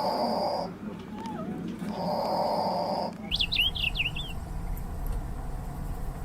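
Bird calls: two harsh, raspy calls about two seconds apart, each lasting about a second; then, about three seconds in, a different recording with steady low background noise and a quick burst of high, rapidly sweeping chirps.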